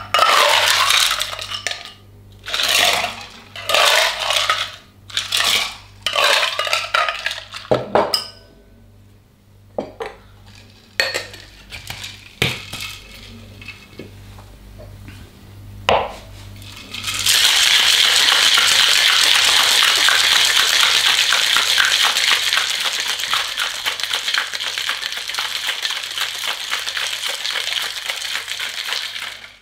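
Ice cubes scooped from an ice bucket several times in quick rattling scoops, then a few single clinks as the stainless steel cocktail shaker is loaded and closed. A little past halfway, ice starts rattling hard and continuously inside the shaker as it is shaken, until it stops abruptly near the end.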